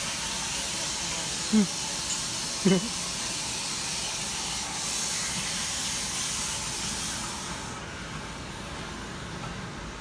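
Natural gas rushing out of a broken 3/4-inch gas line with a steady loud hiss that tapers off about eight seconds in.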